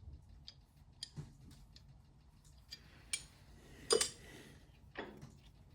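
Light clicks and taps of small metal parts of a lathe's chuck cam lock being handled and taken out, with the loudest knock about four seconds in.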